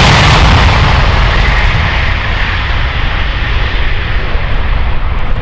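Loud jet noise of the Airbus A380's four Engine Alliance GP7000 turbofans during a low flypast. The high hiss fades and dulls over the first couple of seconds as the aircraft moves away, leaving a heavy, steady rumble.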